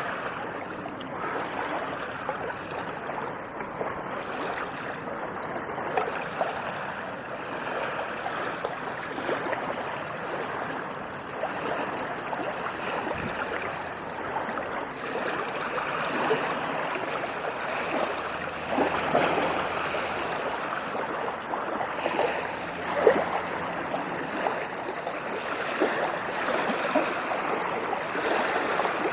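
Ocean waves washing and splashing: a steady rush of water with frequent short splashes, a few louder ones in the second half.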